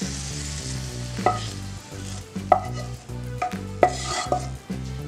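Spatula scraping and clinking against a pan as a hot tadka of fried green chillies, onion and tomato is tipped onto chana masala, with a light sizzle; a few sharp clinks ring out over the scraping.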